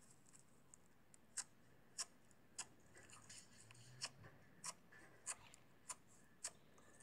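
Slime being poked and pressed with a finger, giving faint, sharp clicking pops at an even pace, about three every two seconds, starting about a second in.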